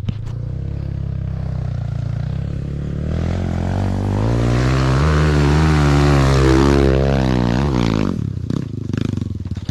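Dirt bike engine running, then revved hard for several seconds with its pitch wavering, and dropping off sharply about eight seconds in.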